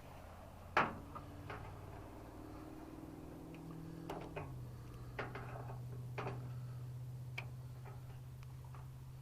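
Sharp metallic clicks and taps of hand tools such as vise grips working a snapped-off screw, about seven in all, irregularly spaced, the loudest about a second in. A steady low hum runs underneath.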